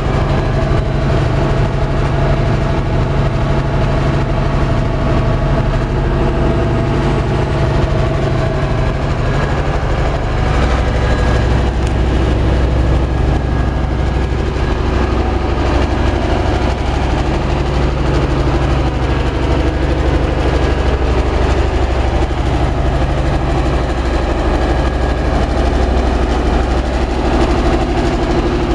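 A large engine running steadily, a constant low drone that does not change in speed.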